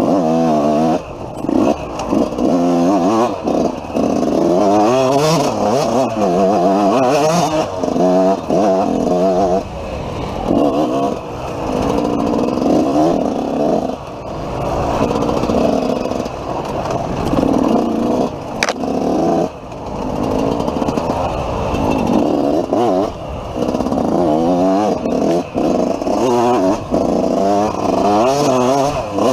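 Dirt bike engine revving up and down over and over as it is ridden hard, its pitch climbing and falling with the throttle and dropping off briefly every second or two. One sharp click comes about two-thirds of the way through.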